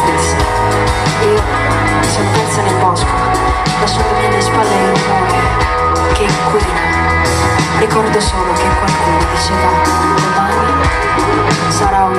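Live band playing loud pop-rock on stage: drum kit keeping a steady beat under electric guitars and keyboards.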